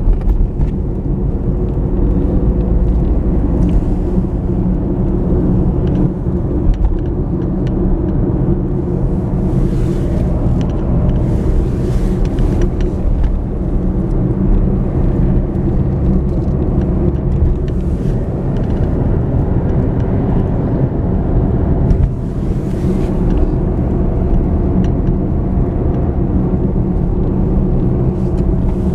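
A car driving steadily along a road: the engine runs under a continuous low rumble of road noise, with a few brief light clicks and rattles.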